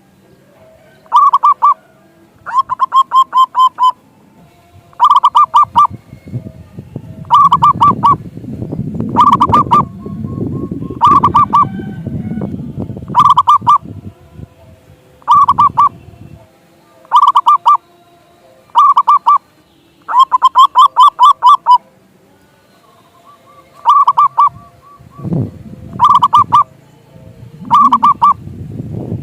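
Zebra dove (perkutut) cooing: short bursts of quick pulsed notes, repeated every second or two. A low rumbling noise comes in under them in the middle and again near the end.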